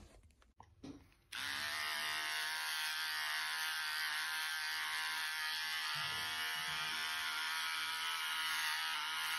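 Electric hair clipper switching on a little over a second in and running with a steady buzz while it shaves the side of the head.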